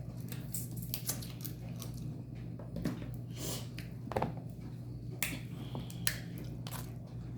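Close-miked eating of seafood boil crab: wet chewing and lip smacks with irregular sharp clicks, over a steady low hum.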